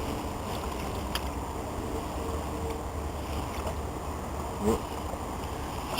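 Steady outdoor background noise with a low rumble of wind on the microphone, and a single light click about a second in.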